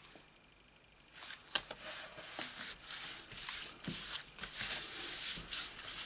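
Hands rubbing and pressing a freshly glued cardstock panel flat onto a card base: dry swishing of skin on paper in quick repeated strokes, starting about a second in.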